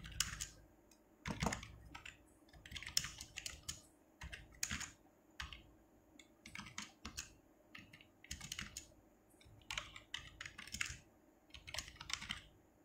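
Computer keyboard being typed on: irregular runs of quick key clicks with short pauses between them as a line of text is entered.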